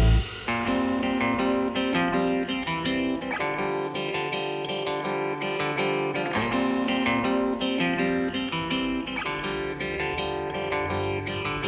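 Background music: a plucked guitar playing a melodic passage of picked notes, with no drums.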